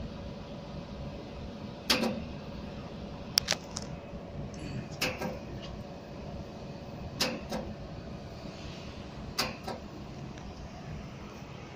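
Jewelry laser welding machine firing single pulses: sharp snapping clicks about every two seconds, several followed closely by a second, over the machine's steady hum.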